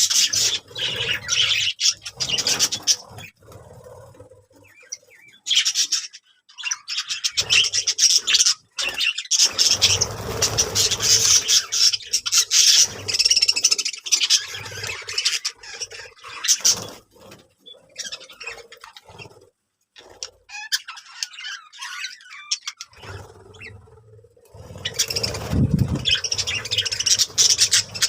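Birds chirping and squawking in dense stretches, broken by a few short quieter gaps.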